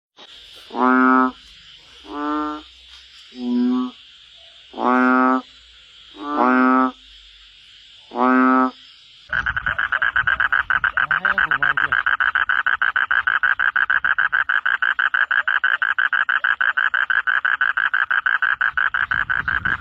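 Frogs calling: six separate deep, drawn-out croaks about a second and a half apart over a steady high hum. About nine seconds in, this gives way abruptly to a dense, fast-pulsing frog chorus.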